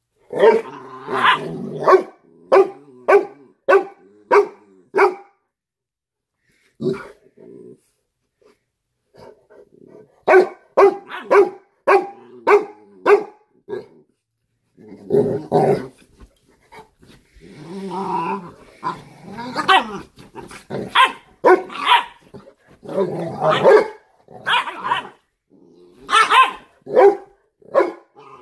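Cane Corsos play-fighting: runs of short, sharp barks at about two a second, broken by longer growls, with a quiet pause of a few seconds early on.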